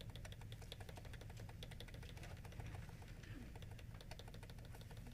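Faint, rapid clicking, several clicks a second: a button or key pressed over and over to skip through presentation slides. A low steady hum runs underneath.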